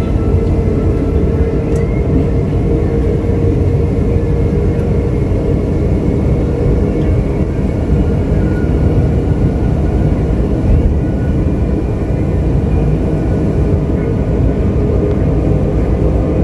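Steady in-car running noise of an MRT-3 light-rail train travelling along its elevated track: a continuous loud low rumble with a faint steady hum over it.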